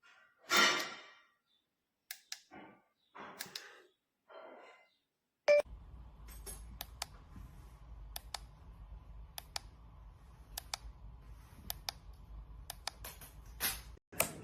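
Handling noises: a few short scraping rustles, then a sharp click about five seconds in, followed by a low steady hum with scattered light clicks over it.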